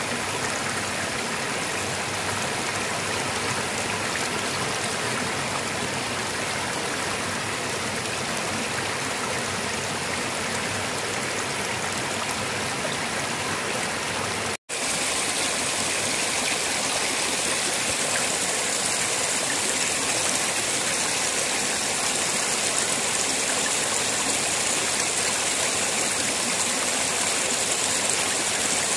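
Floodwater spilling over a low ledge in a close, steady rush and splash. The sound cuts out for an instant about halfway through, then returns a little louder and brighter.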